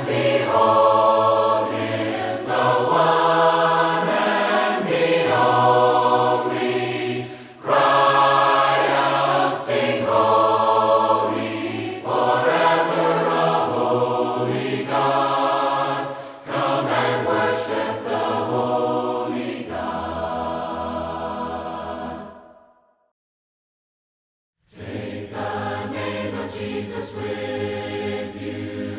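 A group of voices singing a hymn in parts, unaccompanied, in the a cappella style of Churches of Christ. The singing fades out a little over twenty seconds in, there is a silence of about two seconds, and then the voices begin again.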